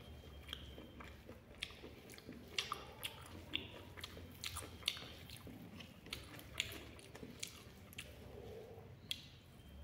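A person chewing a mouthful of rice and curry with the mouth open, giving short wet smacking clicks at irregular intervals, about one a second.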